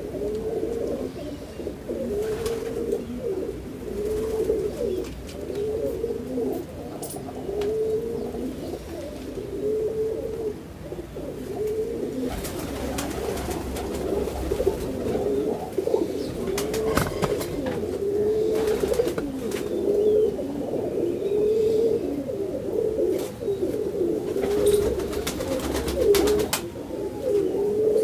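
Domestic pigeons cooing in a loft, a steady run of low cooing calls repeating roughly once a second, several birds overlapping.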